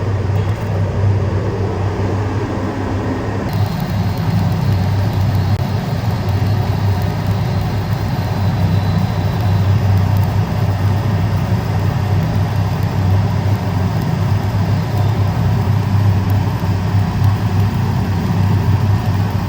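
Steady low electrical hum of heavy welding-shop machinery running continuously. A faint high whine joins in about three and a half seconds in.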